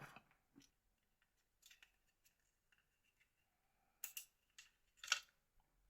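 A few short, faint clicks and scrapes of small parts of a disassembled Nokia 3650 mobile phone being handled, the sharpest click about five seconds in.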